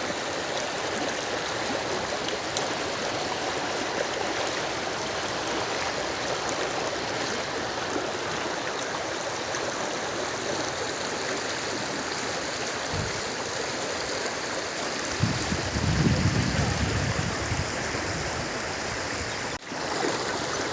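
Rainwater runoff rushing steadily, the flood from the fields flowing over the road after heavy rain. About fifteen seconds in, a low rumble joins it for a few seconds.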